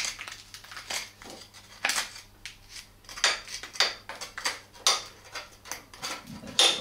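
Large flat-bladed screwdriver scraping and gouging caked, dried chain grease and dirt from around a motorcycle's front drive sprocket. It comes as a run of short, irregular metal scrapes, about one or two a second.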